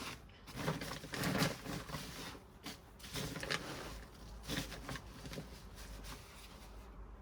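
Hands rummaging through loose potting soil in a potato grow bag: irregular rustling and scraping with short clicks, fading toward the end.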